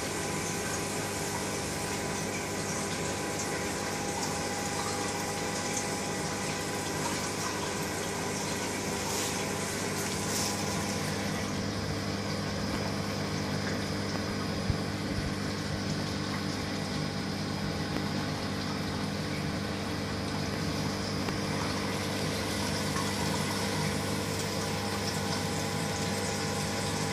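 Aquarium sump pumps humming steadily with water running and trickling in the sump around a biopellet reactor.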